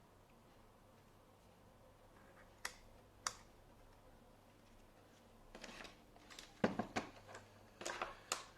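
Light clicks and taps from handling small tools and parts on an electronics workbench: two single clicks a little over half a second apart, then a quicker, louder run of clicks and knocks near the end.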